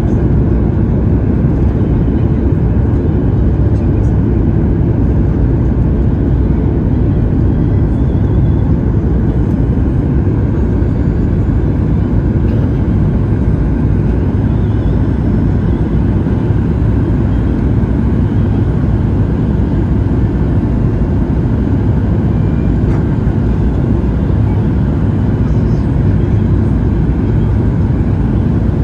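Steady, deep engine and airflow noise inside the cabin of a Boeing 737-800 on approach, shortly before touchdown.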